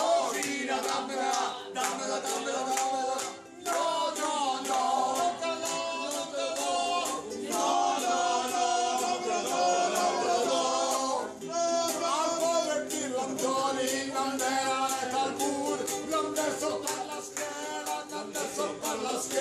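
Several men singing together in a loose group chorus, accompanied by a strummed ukulele keeping a steady beat of about two to three strums a second.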